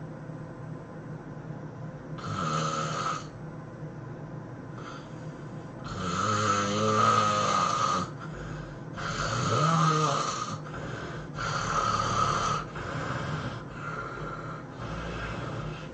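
A person snoring heavily: a run of snoring breaths, the two longest and loudest about six and nine seconds in, with shorter, quieter ones after them.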